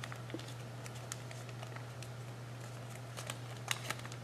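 Faint crinkles and ticks of origami paper being folded by hand, with a few sharper crackles near the end, over a steady low hum.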